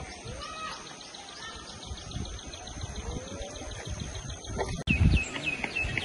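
Birds chirping, including a quick run of evenly repeated chirps. About five seconds in the sound cuts abruptly to another take, with wind rumbling on the microphone under more chirps.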